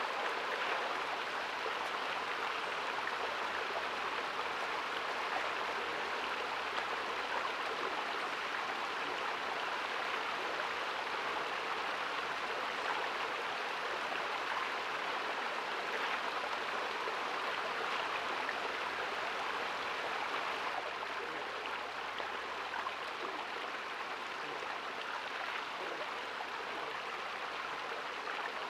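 Shallow woodland stream flowing, a steady babble of running water.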